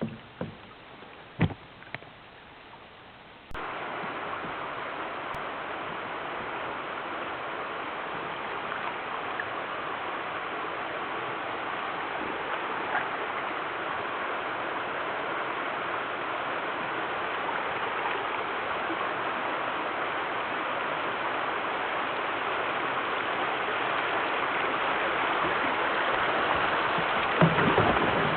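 A few sharp knocks over quiet. Then, about three and a half seconds in, the steady rush of creek water flowing starts suddenly and grows a little louder toward the end.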